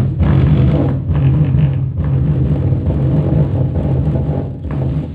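Bass-heavy music played through a DIY 60 W TDA2050 bridge-mode subwoofer amplifier driving a small speaker in a wooden box. A loud, deep bass line dominates, with brief breaks about one and two seconds in.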